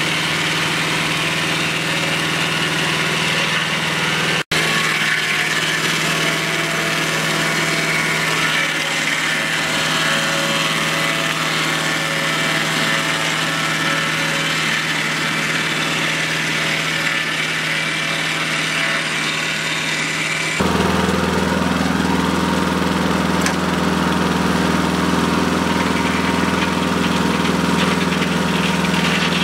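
A portable Mobile Dimension sawmill's engine running steadily while its circular saw blades cut a cedar log into boards. The sound drops out for an instant about four seconds in, and about two-thirds of the way through it shifts suddenly to a louder, deeper hum.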